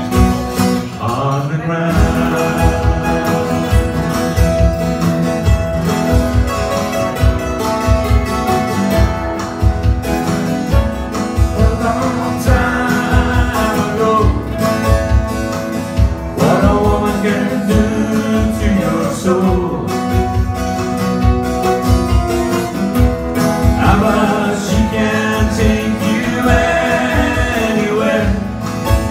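Live acoustic band through a PA: a man singing a melody over a steadily strummed acoustic guitar and a second picked string instrument, in a country/folk style.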